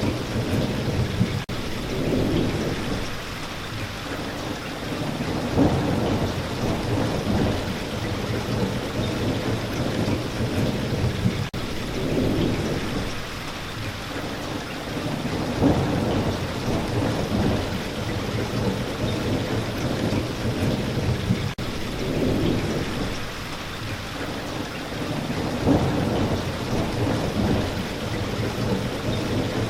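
Steady spring rain falling, with low rolls of thunder swelling about every ten seconds.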